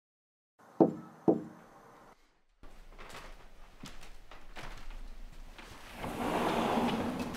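Two loud knocks about half a second apart, like rapping on a wooden door, then quiet room tone with a few small clicks and a swell of rushing noise near the end.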